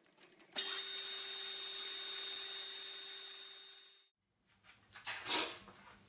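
Metal lathe boring the inside of an aluminium spacer: a steady cutting noise with a steady whine in it, starting sharply about half a second in and dying away around four seconds. Then a few knocks from handling metal parts, one louder clunk among them.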